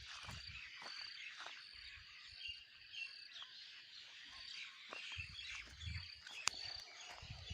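Many small birds chirping and twittering at once, with wind gusting against the microphone now and then and one sharp click near the end.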